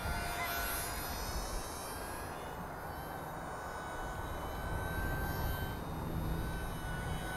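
Small electric motor and propeller of an OMP S720 RC sport plane whining steadily as it flies low past, over a constant rumble of wind on the microphone.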